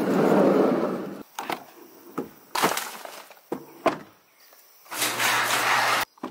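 Fishing rods and reels being laid into a pickup truck bed: rustling and a series of sharp knocks and clatter. Near the end the truck's door handle is pulled and the door is worked, with a steady low hum underneath.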